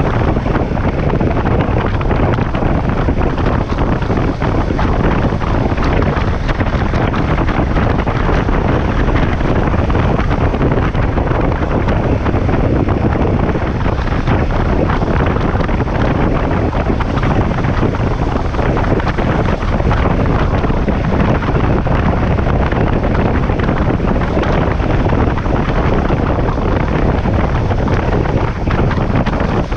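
Steady wind rushing over the microphone of a camera on a moving KTM 1190 Adventure motorcycle, with the bike's engine running underneath.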